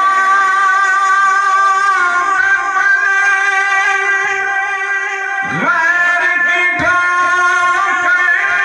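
A man singing a naat, an Urdu devotional poem in praise of the Prophet, in a solo voice. He holds long notes with sliding ornaments, and a little past halfway a new phrase begins with quick swoops in pitch.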